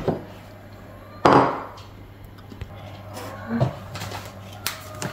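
Kitchen clatter: one loud knock about a second in, as of something set down hard on a counter, then a few lighter taps and clinks, over a steady low hum.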